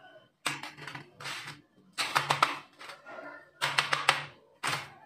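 Crisp, dry cake rusks clattering and crunching as they are picked up and set down on a metal baking tray, in four short bursts of sharp clicks. The crunch shows the rusks are baked crispy and crunchy.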